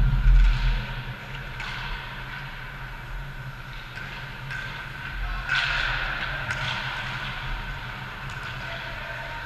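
Ice hockey rink sound: skate blades scraping the ice and a few sharp stick or puck clacks over a steady arena hum, with a loud low rumble in the first second.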